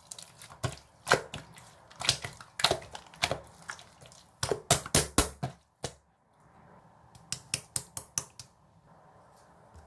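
Irregular sharp taps and clicks, loud and fast for the first six seconds, then a brief pause and quieter, sparser clicks.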